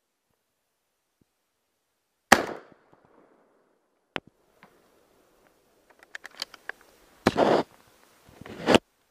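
A single shotgun shot about two seconds in, a sharp crack trailing off, followed by a few light clicks and two short bursts of handling or rustling noise near the end.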